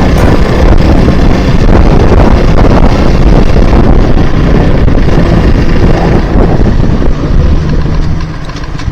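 Wind rushing loudly over the microphone of a moving motorcycle, with the engine running underneath. The rush eases off about eight seconds in.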